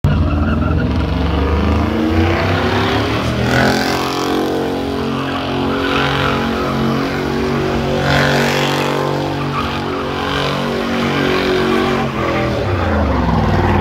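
Pickup truck doing a burnout: the engine is held at high revs while the rear tires spin and screech on the asphalt, with the screech surging twice. The revs dip near the end.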